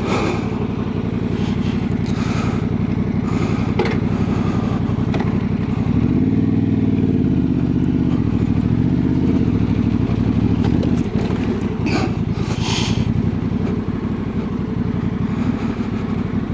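Honda Transalp 750's parallel-twin engine running under load off-road, its revs rising and falling several times in the middle. A few short knocks and clatter come through from the trail.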